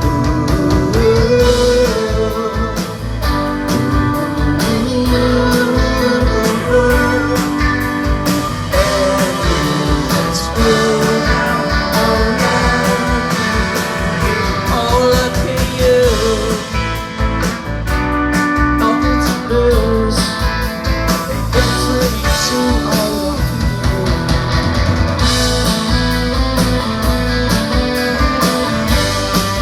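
A live rock band playing an instrumental break of a pop-rock song: a melodic lead line over guitars, bass and drums, loud through the PA.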